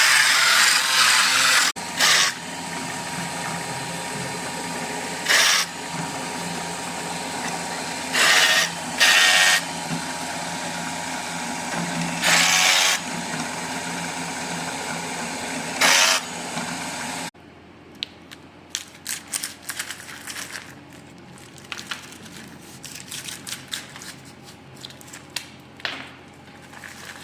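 A power tool working wood for toy wheels: a steady running hum broken by about five short, louder bursts as it cuts. It stops suddenly about two-thirds of the way in, giving way to quieter light clicks and taps of small wooden pieces being handled.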